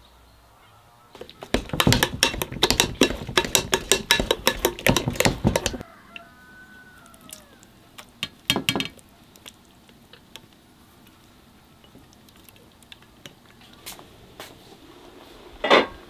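Kitchen work with utensils and cookware: a rapid, irregular run of sharp knocks and clatter lasting several seconds, then a short burst of handling noise and scattered light clicks, and a single loud clank near the end.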